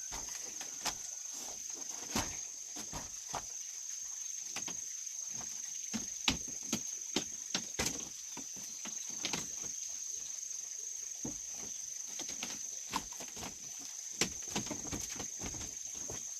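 A steady high-pitched insect drone, with scattered light knocks and clicks at irregular intervals.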